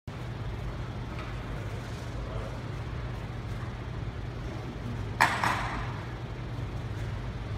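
A steady low hum of room noise, with one short, sharp hissing burst about five seconds in.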